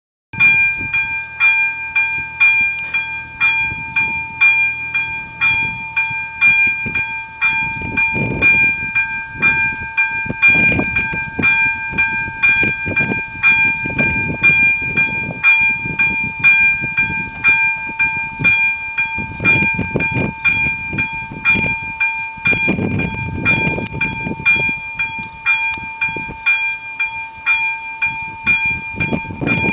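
Level-crossing warning bell ringing as the crossing closes: an electronic tone struck over and over at an even pace, a little over once a second. Low rumbles come and go underneath.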